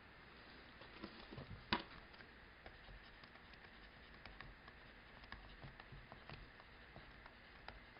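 Near silence with faint, scattered taps and clicks of a stylus writing on a tablet screen, and one sharper click a little under two seconds in.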